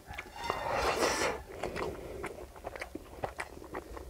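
Close-miked chewing of a hand-fed mouthful of rice and curry, with wet mouth smacks and clicks, loudest for a moment about a second in.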